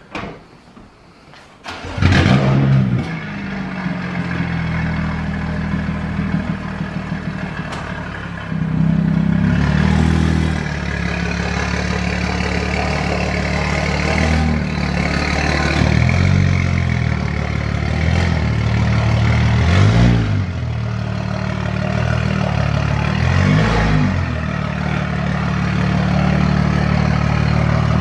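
BMW 435i's turbocharged 3.0-litre N55 inline-six starting about two seconds in with a loud flare, then idling, the revs rising and falling briefly several times.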